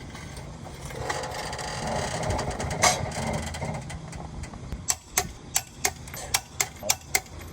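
A rustling handling noise, then, from about five seconds in, a steady run of sharp clicks, about three a second.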